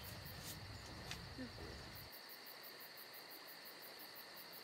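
Faint insects chirping in an even, quick pulse of about four chirps a second. A low background rumble under them stops abruptly about two seconds in.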